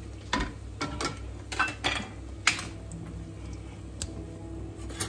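Metal spatula and wire mesh skimmer clinking and scraping against a wok several times as a batch of fried vegetable fritters is lifted out of the oil and drained.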